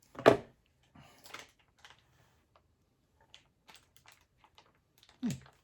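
Plastic snack packet being opened and handled: one sharp crackle about a quarter second in, then scattered small crinkles and clicks.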